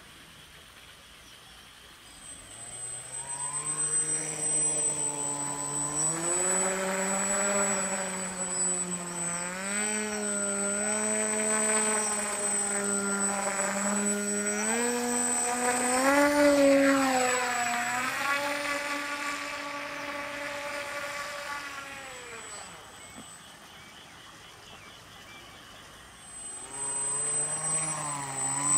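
Radio-control model floatplane's motor and propeller running up about two seconds in as it taxis on the water, its pitch rising and falling with the throttle. It winds down about three-quarters of the way through, then opens up again near the end for a run across the water.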